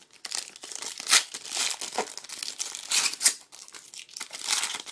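Foil wrapper of a 2012 Panini Elite football card pack crinkling and tearing as it is ripped open and handled, in an irregular run of crackles.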